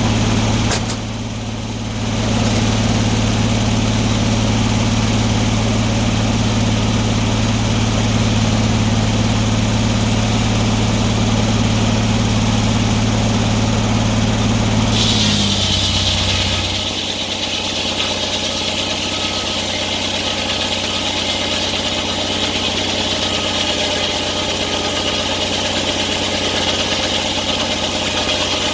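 Antique sawmill running with a steady engine hum. About halfway through, the low hum drops and a steady high hiss takes over, and it runs on to the end.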